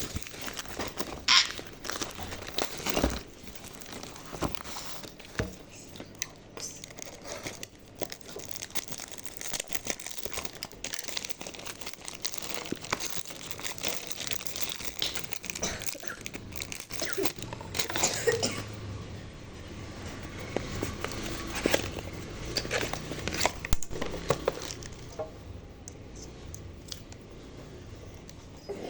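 Perfume packaging being handled and unwrapped: irregular crinkling and tearing with scattered sharp crackles.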